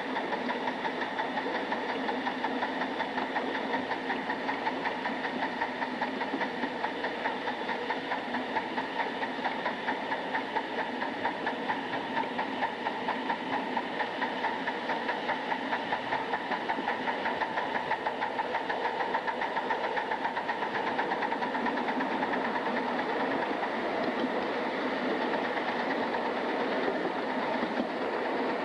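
Atlantic-type live steam locomotive under steam: an even, rhythmic beat of exhaust pulses over a steady hiss.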